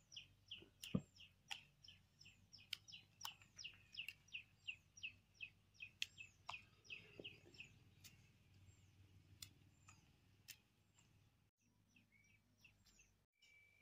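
Faint small-bird calling: a fast run of short, high, falling chirps, a few each second, stopping about eleven seconds in.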